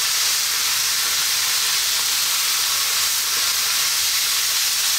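Pork, shredded cabbage and carrot stir-frying in a wok: a steady sizzle while a spatula turns the vegetables, with a faint scrape or two.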